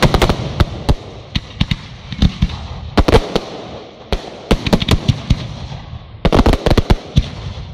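Aerial fireworks going off: repeated sharp bangs in rapid clusters, the loudest near the start, about three seconds in and again between four and a half and seven seconds, over a continuous crackle between them.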